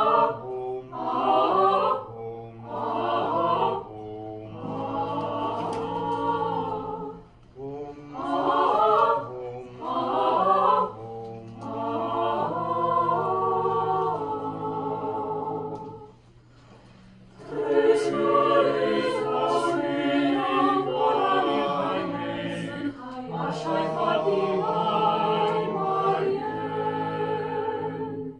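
Mixed chamber choir singing a cappella, the voices setting a jazzy, flamenco, guitar-like accompaniment under the tune. Short rhythmic syllables give way to held chords, in phrases broken by brief pauses, the longest about two-thirds of the way through.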